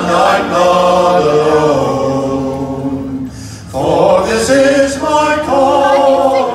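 A group of men singing unaccompanied in close harmony, holding long notes, with a brief break for breath about three and a half seconds in.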